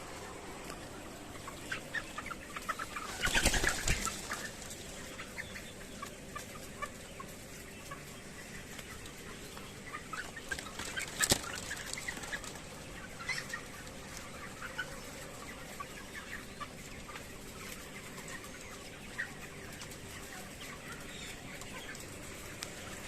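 A flock of chickens clucking with short calls scattered throughout. There is a louder burst of noise about three seconds in and a sharp click near the middle.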